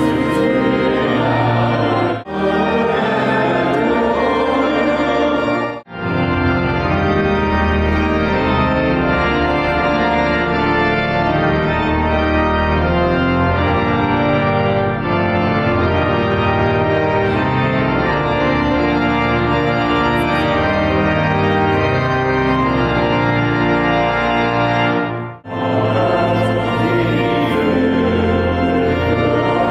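Pipe organ playing full, sustained chords, with short breaks about two and six seconds in and again near the end.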